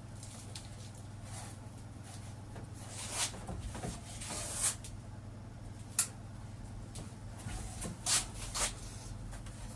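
A few scattered light clicks, knocks and scrapes of sheet-metal work and tool handling at a workbench, the sharpest click about six seconds in, over a steady low hum.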